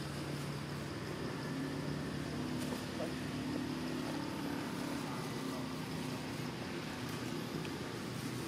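Steady hum of a motor vehicle engine running, over a constant outdoor hiss.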